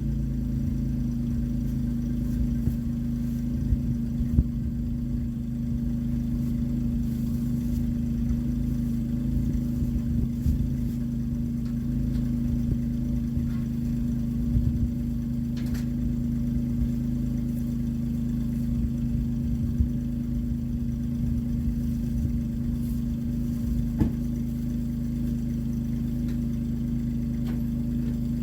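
Engine of a John Deere Gator utility vehicle running steadily at an even speed, with a few brief sharp knocks.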